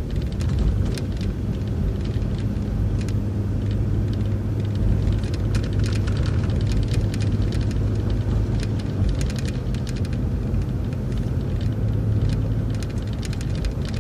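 City transit bus driving along, heard from on board: a steady low engine drone with road noise and many small rattles and clicks from the body and fittings.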